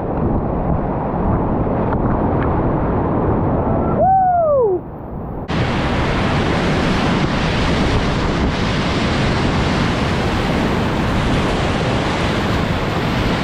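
Whitewater rushing in a river rapid: a steady, loud rush of water with wind buffeting the microphone. About four seconds in, a short pitched call glides up and then down, and the rush grows brighter and fuller from about five and a half seconds in.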